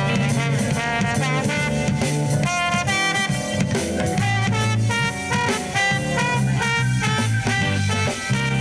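Live band music: a trombone playing a line of notes over drums and bass in a swing-style groove.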